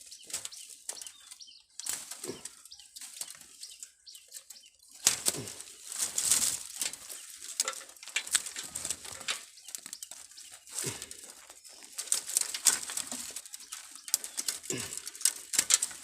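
Irregular rustling and crackling handling noise, a dense run of quick crackles that grows busier about five seconds in.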